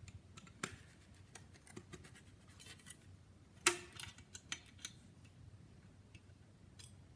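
Scattered light metallic clicks and scrapes of small metal bracket parts and spring-loaded Cleco fasteners being handled and fitted together, with one sharper click a little past halfway.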